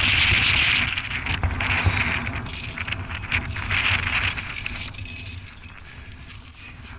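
Trad climbing rack of carabiners and cams jangling and clinking as the climber moves up the crack, over a steady hiss and low rumble; it grows quieter over the last couple of seconds.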